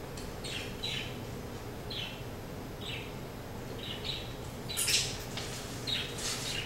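Paper rustling as sheets are handled: short soft scratchy rustles throughout, with louder crackles about five seconds in and again near the end.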